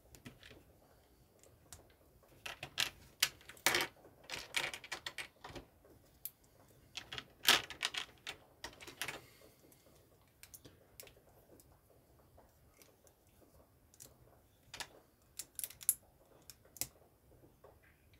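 Plastic LEGO bricks and plates clicking and clattering as they are handled and snapped together, in irregular clusters of sharp clicks.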